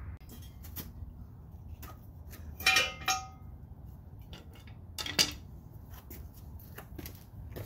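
Metal clinking and clanking as the rusty old exhaust is pried off its rubber hangers: a loud ringing clank about three seconds in, another about five seconds in, with lighter taps between.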